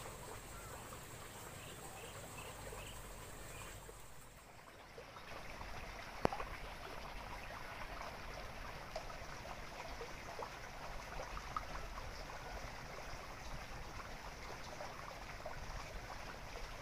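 Fast stream water flowing and babbling, closer and busier from about five seconds in, with one sharp click a little after six seconds.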